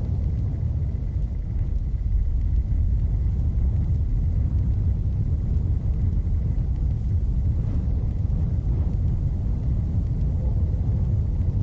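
A steady, low rumbling noise with a faint thin high tone held over it. It starts and stops abruptly, with no change in between.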